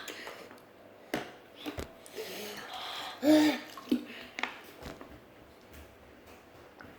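Mouth sounds from someone eating fiery Buldak noodles: sniffs, sharp breaths and small wet eating clicks, with a short voiced grunt about three seconds in, the strain of the heat.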